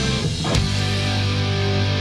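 Rock music with guitar. The music changes sharply about half a second in, then holds steady chords.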